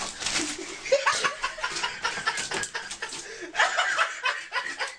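People laughing and chuckling in short, repeated bursts.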